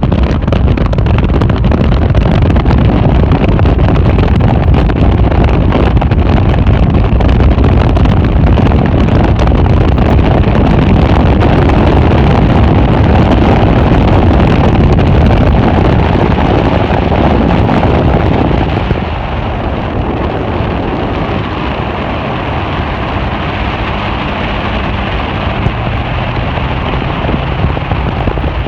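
A fishing boat's motor running at speed, with heavy wind buffeting the microphone. The engine eases off somewhat about two-thirds of the way through and keeps running at the lower level.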